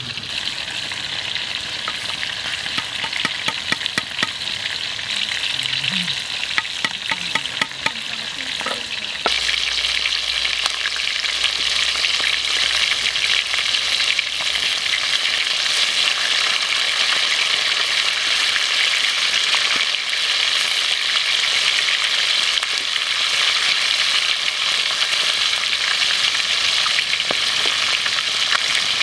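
Chicken legs deep-frying in hot oil in a wok, a dense steady sizzle that gets suddenly louder and fuller about nine seconds in. Before that there is a lighter crackle with scattered clicks.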